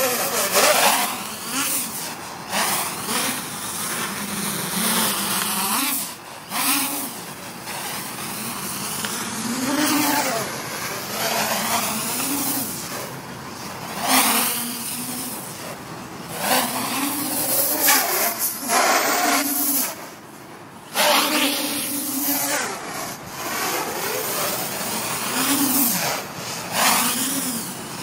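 Traxxas Aton quadcopter's electric motors and propellers buzzing in flight. The pitch swoops up and down again and again as the throttle changes through flips and manoeuvres, and the sound drops away briefly twice.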